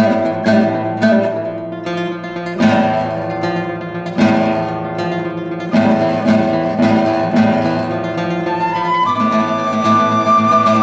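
Nylon-string classical guitar strumming repeated, sharply accented chords. About nine seconds in, a concert flute enters with a held high note that steps up in pitch over the guitar.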